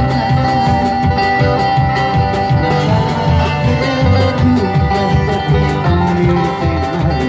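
Live acoustic trio playing an instrumental passage: acoustic guitar over plucked upright bass and drums keeping a steady beat.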